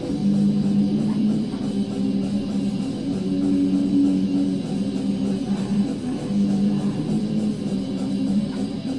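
Background metal music dominated by electric guitar, holding sustained low notes; the uploader's background track is raw black metal.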